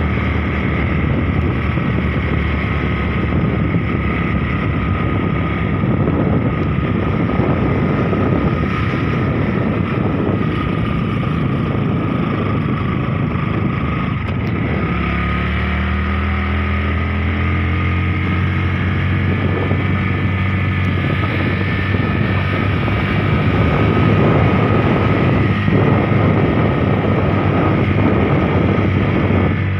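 Motorcycle engine running at road speed, heard with steady wind noise on the microphone while riding. About halfway through, the engine note rises steadily as it pulls.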